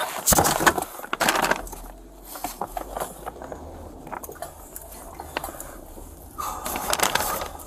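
Paper evidence bag rustling and crinkling as it is handled close to a body-worn camera, with many sharp clicks and knocks. It is loudest in the first second and a half and again near the end, with a low steady hum underneath.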